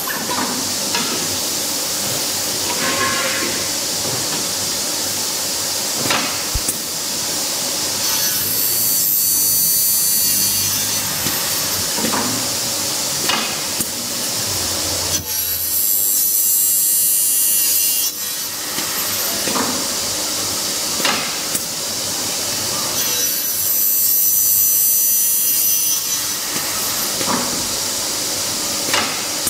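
Double-head aluminium cutting saw running, its blades cutting through 2.2 mm aluminium profile three times. Each cut is a high-pitched shriek lasting two to three seconds, with sharp clicks between the cuts.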